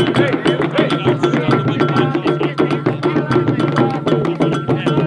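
Afro-Brazilian ritual music: fast, steady drumming on atabaque hand drums with a bright struck bell or wood-block beat, under voices singing a chant to Xangô.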